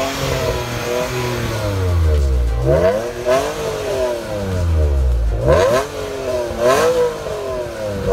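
Alfa Romeo 156's V6 24-valve engine revved in about four blips, the pitch climbing quickly and then falling back each time.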